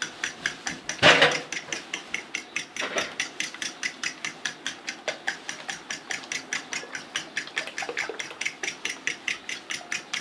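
Raw eggs being beaten briskly in a bowl, the utensil clicking against the bowl about five times a second. One louder knock comes about a second in.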